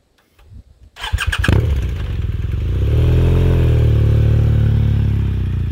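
Motorcycle engine starting: a few sharp strokes as it cranks and catches about a second in, then it revs up and holds a steady high rev, easing off slightly near the end.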